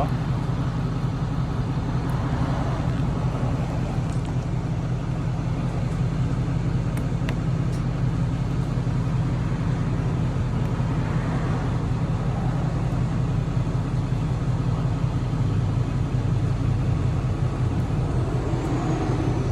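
Steady low rumble of an idling vehicle engine, with a few faint clicks from a Lishi pick working a truck door lock.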